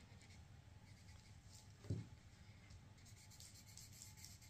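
An Ohuhu art marker's tip faintly stroking and rubbing across paper as a drawing is coloured in. A single soft thump about two seconds in.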